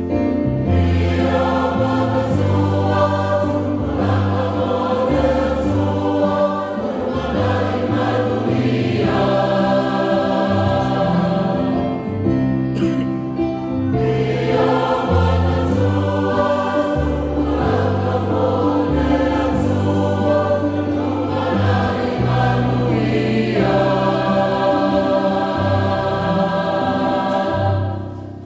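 Choral music: a choir singing sustained chords over a steady bass line, fading out at the very end.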